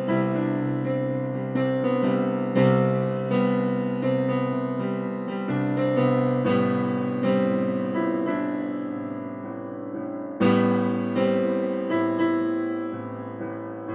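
Slow, gentle solo piano music: struck notes and chords that ring and fade, with a fresh, stronger chord about every four seconds.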